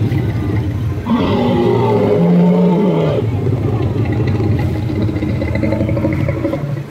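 Animatronic Tyrannosaurus rex figure's recorded roar played through its speaker: one long, loud roar with deep growling tones, swelling about a second in and cutting off just before the end.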